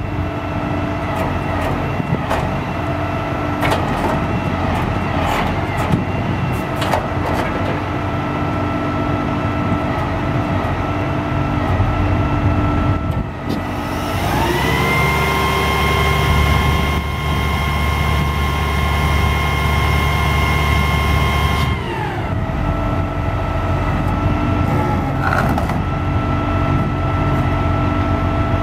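Peterbilt 340 crane truck's diesel engine running at idle. About 14 s in it is revved up and held at higher speed for about eight seconds, then drops back to idle, while the crane's hydraulics lower the rear stabilizer jack. There are light clicks and knocks from the controls and hydraulics.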